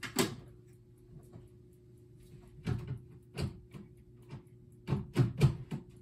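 Knocks and clunks of objects being handled and set down: several short thumps, with a quick cluster of the loudest ones near the end, over a steady low hum.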